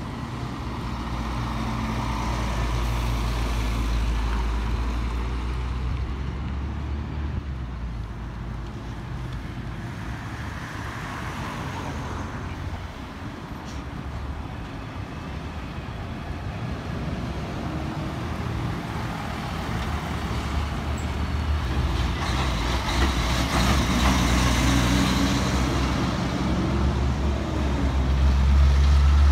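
Heavy diesel trucks driving one after another through a roundabout, their engines rumbling as they slow and pull away. The sound is loud near the start, eases off in the middle, and grows again near the end as a Kenworth prime mover with a refrigerated trailer comes through, its engine note rising and falling.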